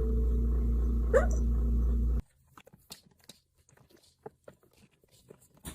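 A dog gives one short rising whine about a second in, over a steady low hum. About two seconds in the sound cuts off abruptly to near quiet with scattered faint clicks.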